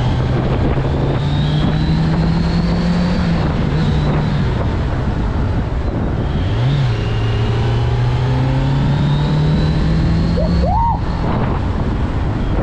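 Kawasaki Z900's inline-four engine pulling hard under acceleration, recorded on the bike over rushing wind. The engine note climbs, falls away about four seconds in, gives a short blip near seven seconds, then climbs steadily again.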